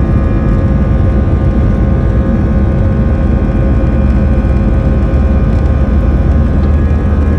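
Jet airliner engines running steadily and loudly: a deep rumble with several steady whining tones held over it.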